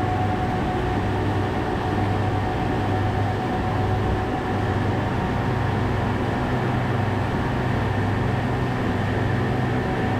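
Fishing boat's engine running at a steady speed, a constant unbroken drone.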